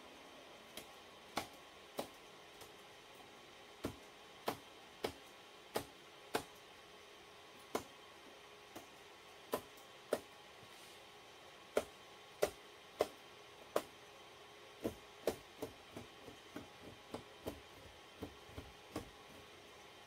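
Irregular sharp clicks and knocks of hardware being handled, about thirty of them, coming closer together over the last few seconds. Under them runs a faint steady hum.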